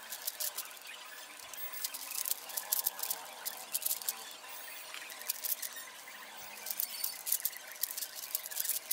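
Rapid plastic clicking of a 5x5 puzzle cube's layers being turned in quick succession, the clicks running close together.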